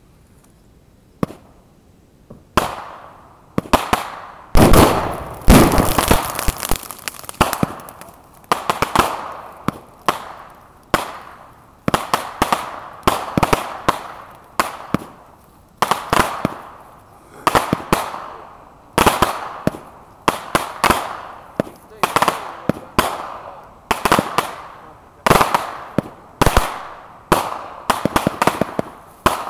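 Fireworks set off as mock mortar blasts: a long, rapid series of sharp bangs that starts about two and a half seconds in, with several bangs a second in places.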